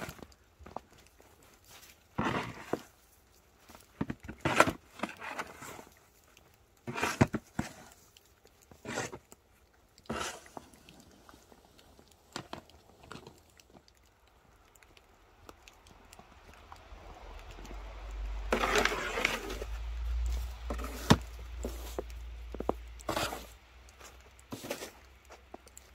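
Snow shovel scraping and scooping heavy, wet snow off miniature railway track, in separate strokes every two seconds or so. About two-thirds of the way through comes a longer, louder stretch of crunching over a low rumble.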